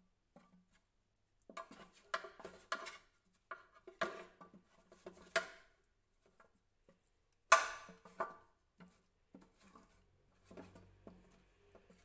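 Long chopsticks knocking and scraping against a stainless steel tray while tossing chicken wings in crispy-frying flour. Irregular clicks and clinks, with the sharpest knock about seven and a half seconds in.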